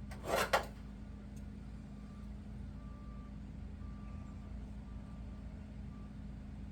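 A short sharp double knock or clatter, two quick hits within about half a second, just after the start, over a steady low hum.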